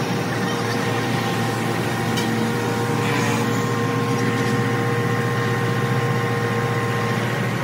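An engine running steadily: a constant mechanical hum with a few steady whining tones over it, holding the same level throughout.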